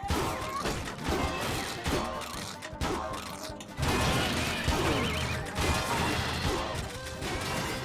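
A dense montage of sound effects over music: repeated crashes and impacts mixed with sliding, swooping tones and a steady low hum.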